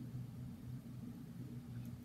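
Quiet room tone with a faint, steady low hum and a couple of faint ticks near the end.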